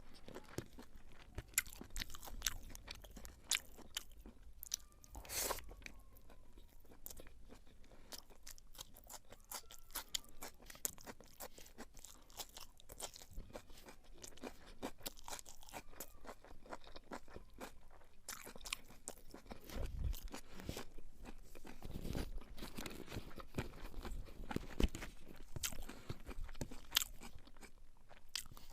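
Close-up eating sounds of a person chewing and biting beef pilau: a steady run of wet mouth clicks and crunches, with a few louder, deeper thumps about two-thirds of the way through.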